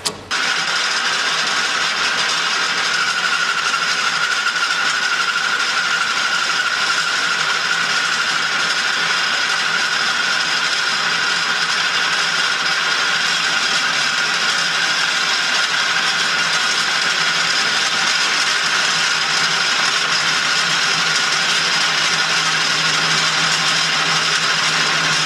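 Taper rod sharpening machine running steadily at a constant level, starting abruptly about half a second in.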